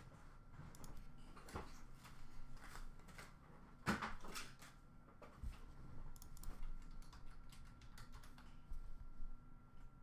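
Faint scattered clicks and taps of a computer keyboard and mouse in use, with one louder knock about four seconds in, over a faint steady high-pitched hum.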